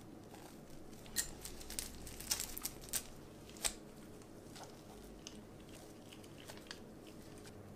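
Chocolate flakes being scattered onto whipped cream in a glass dish: a run of crisp clicks and crinkles for about two and a half seconds starting a second in, then a few faint scattered clicks.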